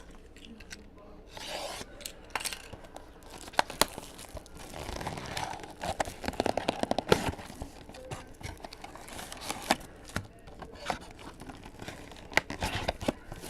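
Trading card pack wrappers being torn open and crinkled, with the rustle and clicks of cards being handled; the densest tearing comes about five to seven seconds in.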